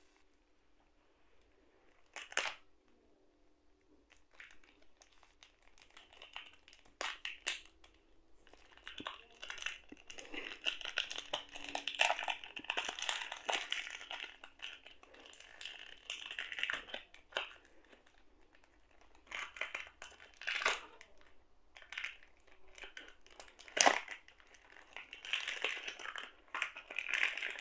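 Thin plastic shrink-wrap film crinkling and crackling as it is peeled off a puzzle cube by hand. A few sharp crackles come first, then denser, irregular crinkling.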